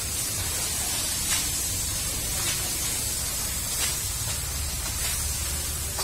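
Water spraying from a hose onto a concrete floor: a steady hiss.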